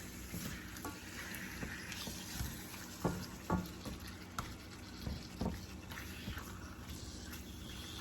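Chicken and onion frying in oil in a pan with a steady sizzle while being stirred, a utensil knocking against the pan several times.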